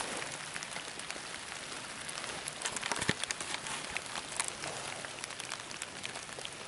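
Steady rain falling on dead leaves, heard as a fine hiss dotted with many small drop ticks, with one sharper knock about three seconds in.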